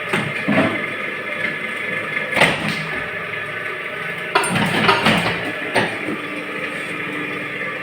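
Small gallon-cap moulding machine running with a steady mechanical hum, broken by several irregular clunks and knocks.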